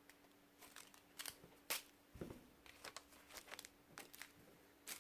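Faint crinkling and a few light clicks and one soft knock as small plastic bags of diamond-painting drills are handled and sorted.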